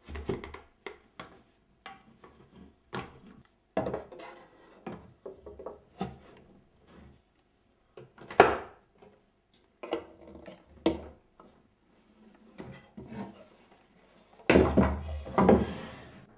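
Wooden parts of a flat-pack rocking horse knocking, clicking and scraping as panels are slotted together and a wooden dowel and peg are pushed into place. A string of separate knocks, the sharpest about eight seconds in, with a dense cluster of knocks and rubbing near the end.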